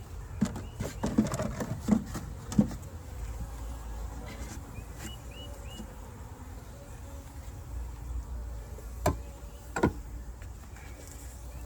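Honeybees buzzing around an open hive, with a cluster of knocks and clatters in the first few seconds and two sharper knocks near the end as the hive parts are handled.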